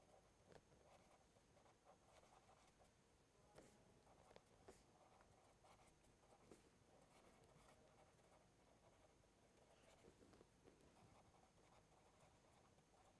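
Faint scratching and soft taps of a pen writing on paper, in short irregular strokes, against near silence.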